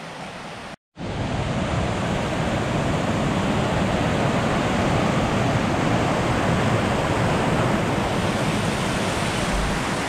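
Fast-flowing mountain burn in spate rushing over rocks below a small waterfall: a loud, steady rush of water. It follows a quieter stretch that breaks off at a brief cut about a second in.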